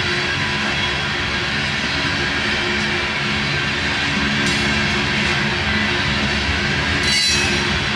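BNSF freight train of aluminum coal cars rolling past, a steady rumble and rattle of wheels on rail. About seven seconds in, a brief, sharper high-pitched sound rises above it.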